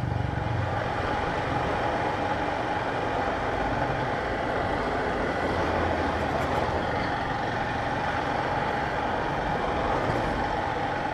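Honda CG Titan motorcycle's single-cylinder engine running steadily while riding at low speed, heard through a helmet-mounted camera along with wind rumble.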